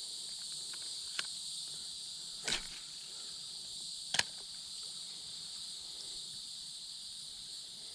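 Steady chorus of insects, crickets or katydids, a high even drone. Three short sharp clicks break through about a second, two and a half and four seconds in.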